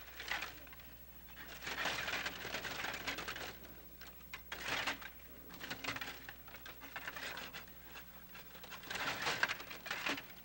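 Stiga table hockey game in play: rapid clicking and rattling of the metal control rods sliding and spinning and the plastic players hitting the puck. It comes in several flurries a second or two long, with quieter gaps between.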